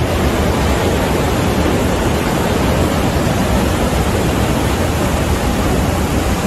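Torrential floodwater and storm rain making a loud, even rushing noise with a heavy low rumble.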